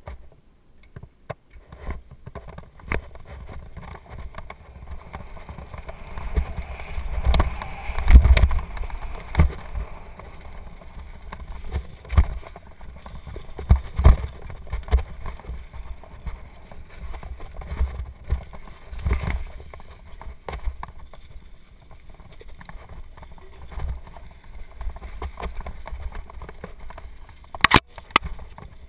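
Bicycle descending a rough dirt trail: wind rumbling on the camera microphone and frequent knocks and rattles as the bike jolts over bumps, the biggest jolts about eight and fourteen seconds in.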